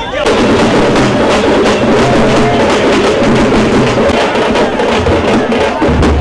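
Music carried by loud, fast drumming, with a dense run of close-set beats.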